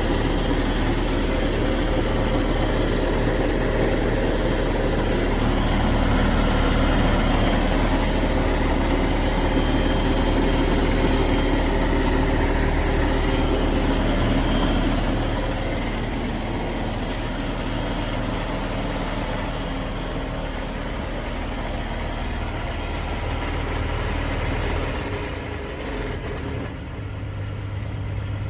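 1988 Sea Ray boat engine idling steadily while run on a water hose, easing slightly in level about halfway through and shifting in tone near the end.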